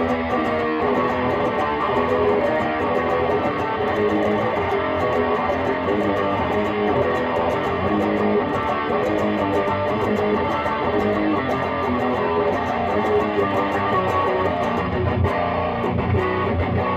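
Gibson Les Paul electric guitar played through a Lone Wolf Audio Bullet Belt pedal into a Peavey 6505 amp and 2x12 cab, a continuous heavily distorted riff. The tone is growly and barky, with the pedal's bright switch off.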